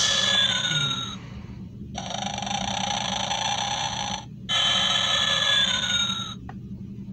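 Gemmy animated snoring Santa figure playing its snoring sound through its small speaker, thin with no low end. The cycle runs: a whistling snore whose pitch dips at the end, then a breathy rasping in-breath, then another whistling snore.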